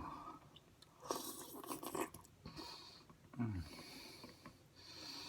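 A man's breathy exhale, then a short groan falling in pitch, about three and a half seconds in: he is uncomfortably full after a big meal.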